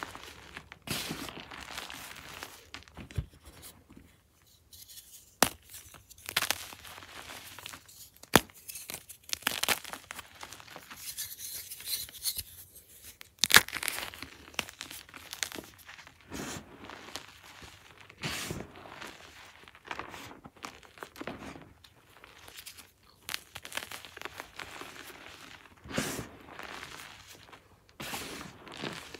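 Hands crushing and squeezing crumbled gym chalk (magnesium carbonate) blocks and powder: an irregular run of soft crunches and crackles with several sharper crunches.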